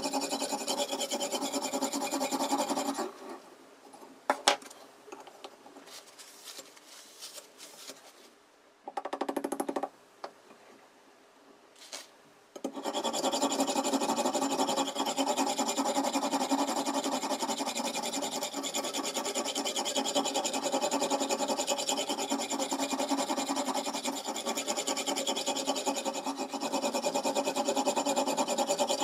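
Oil whetstone on a guided knife sharpener rubbing back and forth along a kitchen knife's edge in a steady stream of strokes. It stops about three seconds in, leaving a few sharp clicks and a brief rub. The rubbing starts again about twelve seconds in and carries on.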